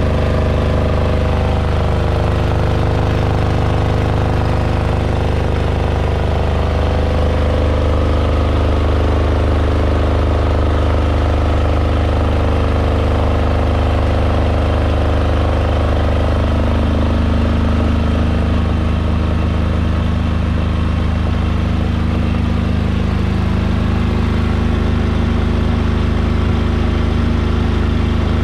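Powerzone PDG 8700SS air-cooled silent diesel generator running steadily under a load of lit bulbs, a constant low hum.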